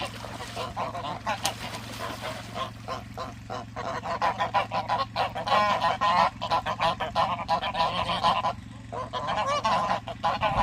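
Pond waterfowl calling in a dense, near-continuous run of short, rapid calls, several birds at once.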